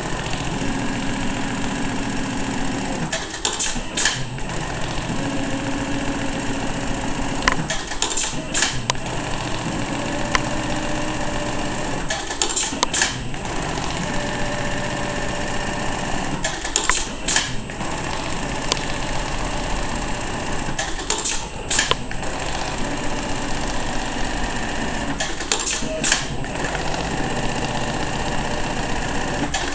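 Juki AMS-223C computer-controlled pattern sewing machine stitching in runs of two to three seconds. Each run is followed by a pair of sharp clicks, and the cycle repeats about every four seconds over a steady motor hum.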